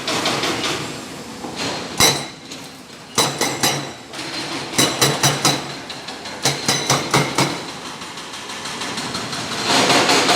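Excavator at work: sharp metallic clanks and knocks come in irregular clusters, about a dozen of them, over a steady machine noise that is louder near the start and again near the end.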